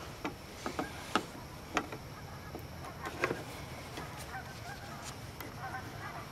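Sharp clicks of a wire stripper-crimper and plastic butt connectors as the connectors are fitted and crimped onto wiring, a handful of them in the first three and a half seconds. Faint calls run in the background.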